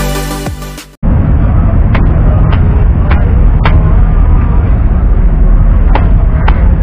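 Electronic intro music ends about a second in, followed by a cleaver chopping into a seer fish on a wooden log block: sharp knocks, four about half a second apart, then two more near the end. A loud steady low rumble of background noise runs under the chops.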